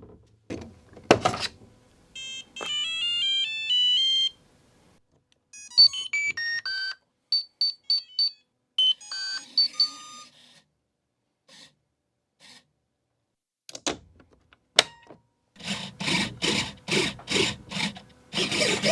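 Electronic beeps and short stepped tone melodies from an RC model helicopter's electronics powering up and initialising. A run of pulsing noises, about two a second, starts near the end.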